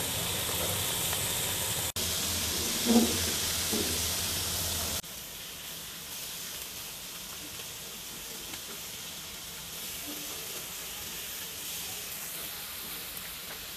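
Pieces of hairtail (ribbonfish) sizzling as they pan-fry in oil in a wok, turned with a metal spatula, with one brief louder knock about three seconds in. The sizzle drops quieter about five seconds in.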